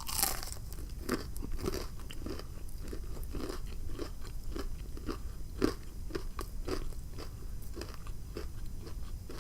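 Biting into a battered, fried butterfly shrimp with a crunch, then chewing it close to the microphone with steady crunching strokes, about two a second.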